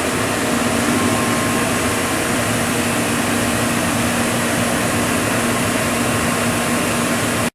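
Steady mechanical hum and fan-like whir of powered shop machinery, with a constant low tone and no change in pitch.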